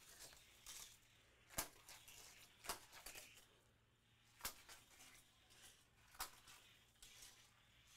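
Faint run of a Hot Wheels die-cast Batmobile down orange plastic gravity track with kicker loops: a few sharp plastic clicks and clacks spread through, with light rolling noise between.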